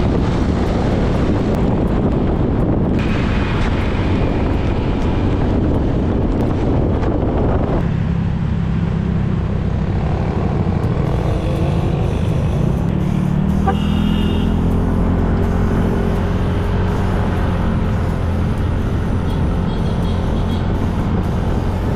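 Riding on a motorcycle: wind buffets the microphone for the first several seconds, then the engine note comes through as a steady low hum, rising in pitch about halfway through as it speeds up.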